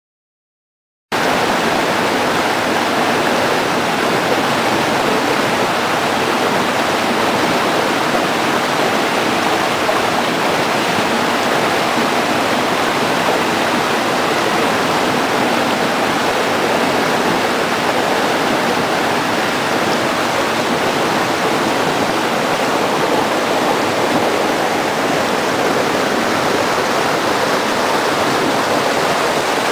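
Rocky river rushing over boulders and small cascades: a steady rush of water that starts abruptly about a second in.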